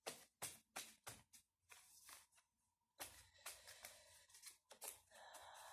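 Faint, soft patter of a deck of tarot cards being shuffled by hand, overhand, about three card slaps a second; it breaks off briefly after a second and a half, then starts again more unevenly, with a soft hiss near the end.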